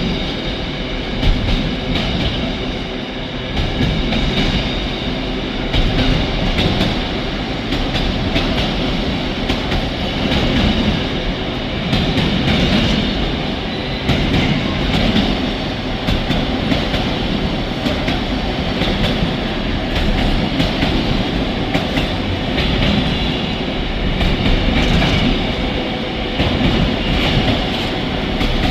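Intermodal container freight train rolling past, its wagon wheels clattering steadily over the rail joints with many sharp clicks.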